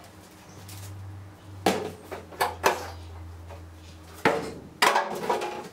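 Sheet-metal cover panels from a copier finisher clanking as they are handled and set down, about five sharp metallic knocks and clatters.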